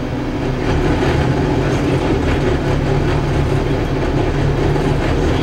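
Cabin noise inside a Scania K280UB city bus under way: the rear-mounted Scania diesel engine drones along with road rumble and light interior rattles, getting louder about a second in.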